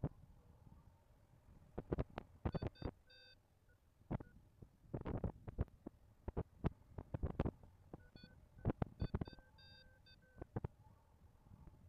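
Paragliding variometer beeping in short, quick tones, in two spells, the sound it makes when the glider is climbing in lift. Irregular thumps of wind buffet the microphone throughout.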